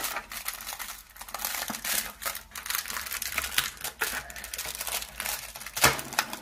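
Clear plastic blister packaging crinkling and crackling as it is handled and pulled open, with a sharp snap of plastic near the end.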